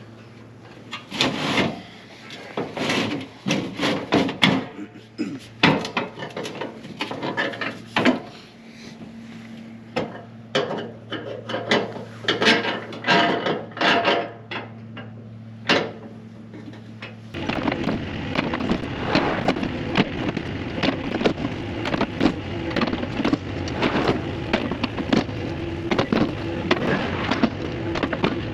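Repeated knocks and clanks over a steady engine hum. About 17 seconds in, the sound changes abruptly to denser, continuous machine noise with rapid rattling.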